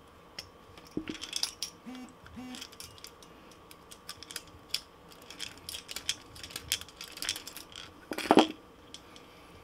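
Split ring pliers and a steel treble hook clicking as a split ring is opened and the hook fitted to the lure's eye: irregular light metal clicks and ticks, with a louder clatter about eight seconds in.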